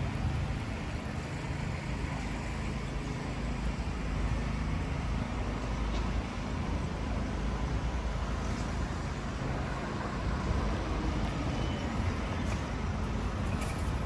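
Steady city street traffic: a continuous low rumble of passing cars and other motor vehicles.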